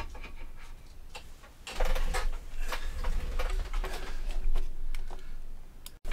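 Scattered light clicks and knocks from handling the stripped Carcano rifle's barrel and receiver in a plastic gun cradle, with low bumping rumble between them.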